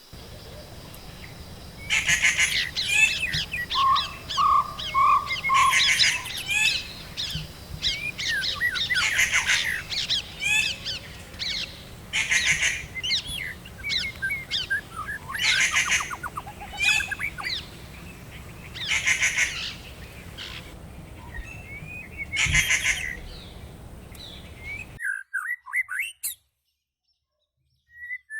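Birds calling in loud, chattering bursts every two to three seconds over a steady background hiss. The sound cuts out abruptly near the end, followed by a few thin chirps.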